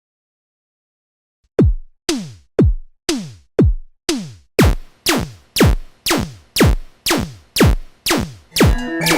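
Synthesized drum-machine hits, each a sharp thump that slides steeply down in pitch, repeating evenly about twice a second after a second and a half of silence.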